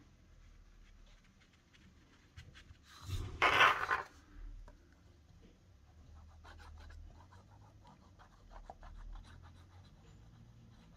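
Paper and cardstock rustling and sliding on a tabletop, loudest in one brief rustle about three seconds in as the sheet is turned. Faint scratching runs through the rest as the nozzle of a liquid-glue bottle is drawn along the paper's glue flaps.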